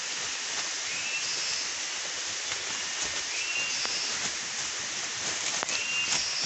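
Forest ambience: a steady hiss with a short high chirp that repeats every two to three seconds, and a few sharp clicks.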